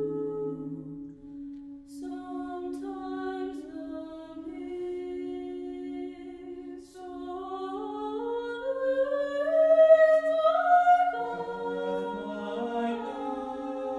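SATB choir singing a cappella in sustained chords over a held low note, with one line climbing step by step and swelling to its loudest about ten seconds in.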